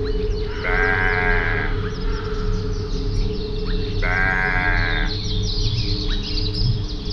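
A bleating farm animal calls twice, each call lasting about a second, about three seconds apart. Many quick bird chirps and a steady low hum run underneath.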